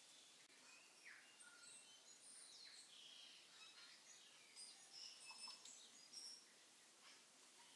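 Faint sizzling and crackling of sliced onions and whole spices frying in oil and ghee in an Instant Pot's stainless steel inner pot, stirred with a wooden spoon, with a cluster of louder pops a little past the middle.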